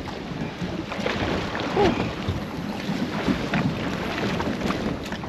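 Wind buffeting the microphone over open sea, with water washing against the side of a small boat and a few brief knocks.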